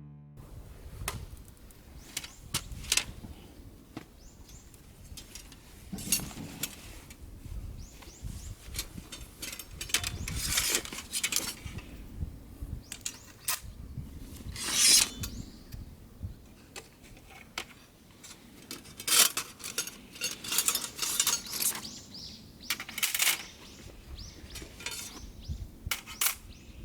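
Metal camping gear being handled: irregular clinks, knocks and clatters, some ringing briefly.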